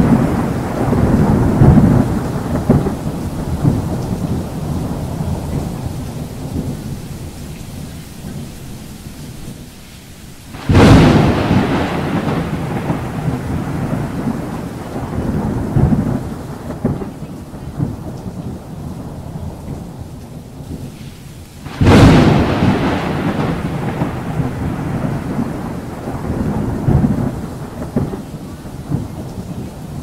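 Thunder over steady heavy rain: a rumble fading at the start, then two sharp cracks about 11 s apart, each rolling off into a long low rumble.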